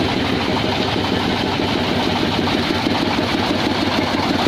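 The engine of a homemade 'grandong' dump truck running steadily at idle with a rapid, even pulsing. It is too loud.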